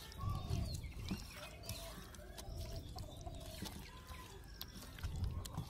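Soft wet squishing and low thuds of hands kneading raw chicken legs in a thick masala marinade in a metal bowl. Faint short bird calls run through it in the background.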